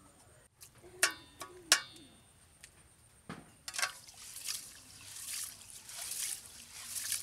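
Rice being washed by hand in water in an aluminium pot: wet sloshing and rubbing of the grains in repeated swishes from about four seconds in. Before that, two sharp clinks that ring briefly, about one and nearly two seconds in, and a dull thump a little after three seconds.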